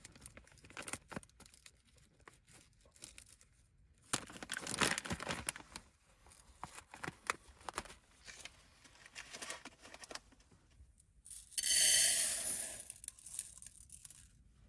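Rustling, crinkling and tearing handling noises with scattered clicks, loudest about four to six seconds in. A brief ringing tone sounds near the end.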